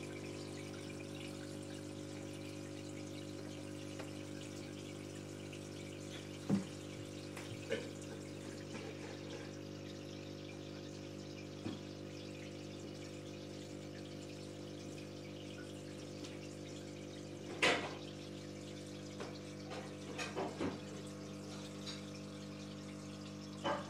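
Aquarium pump humming steadily, with a light trickle of water. A few brief sharp sounds break in, the loudest about two thirds of the way through.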